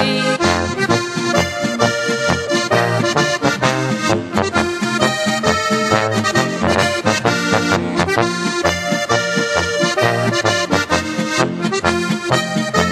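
Instrumental passage of a Slovenian folk-pop (narodno-zabavna) song between sung verses, led by accordion over a steady beat.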